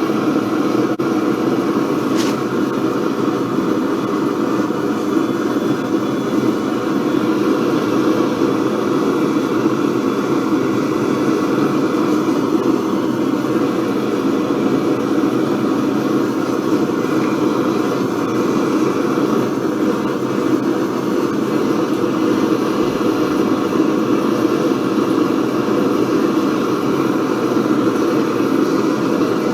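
Gas torch flame burning with a steady roar while heating a steel bar to bend it.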